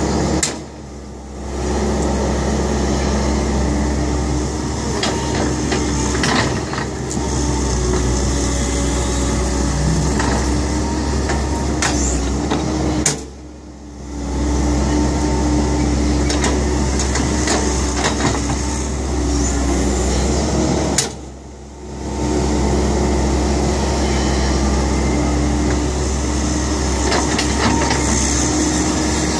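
Kobelco hydraulic excavator's diesel engine running steadily under work. It briefly drops away three times, each time starting with a sharp click: about half a second in, about halfway, and about two-thirds of the way through.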